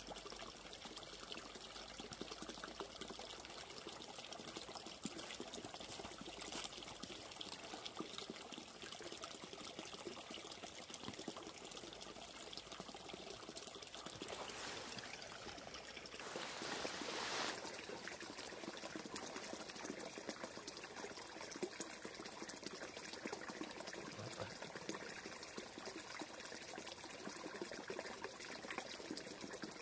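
Water running and trickling steadily, with a louder rush lasting about a second and a half just past the middle.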